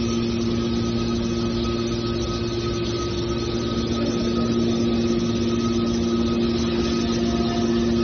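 Aluminum can baler running with a steady, unchanging motor hum.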